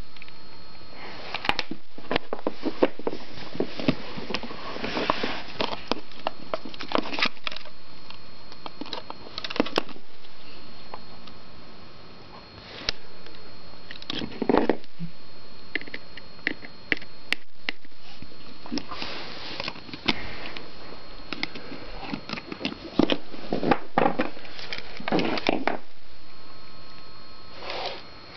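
A tool scraping, prying and clicking against an iPod's casing, in irregular bursts of rough scraping full of small clicks and cracks.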